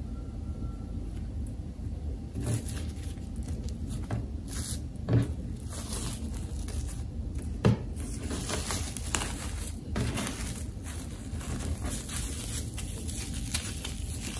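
Kitchen handling sounds during pastry or filling preparation: four soft thumps about two and a half seconds apart, with scraping and rustling between them over a steady low hum.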